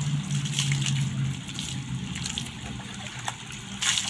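Water poured from a plastic scoop splashing over a soapy dog and running onto a concrete floor as the dog is rinsed, with a louder splash near the end.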